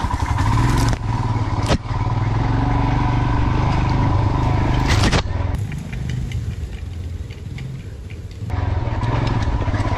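Single-cylinder motorcycle engine running under throttle, with a few sharp knocks about two and five seconds in. It drops to a quieter level for a few seconds past the middle, then comes back up.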